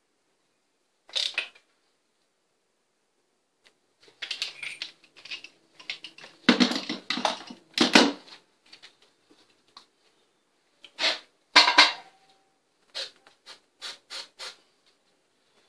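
Metallic clicks and clatter of a hand ratchet and socket extension being worked on a spark plug and pulled from the plug well, in irregular clusters. Near the end come five or so short bursts as a spray can is used.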